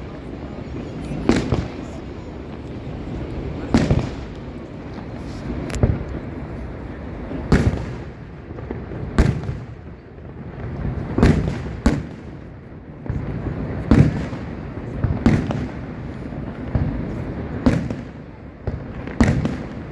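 Fireworks display: aerial shells bursting, about a dozen booms roughly one to two seconds apart, over a steady low rumble.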